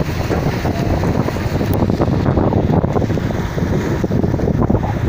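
Wind buffeting a mobile phone's microphone over choppy river water: a loud, constant low rumble with fast gusty fluctuations and the wash of the waves beneath.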